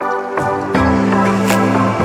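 Background music with a steady beat: sustained synth chords over a bass line that comes in under a second in.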